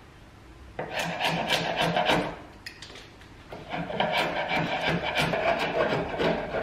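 A sharp chisel scraping old paint off hardwood window trim: quick, repeated scraping strokes in two runs, with a short pause about halfway through.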